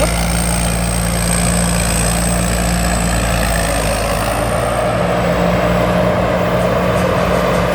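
Rice combine harvester running steadily while harvesting: a continuous engine hum with a thin high-pitched whine over it, the engine note shifting slightly about five seconds in.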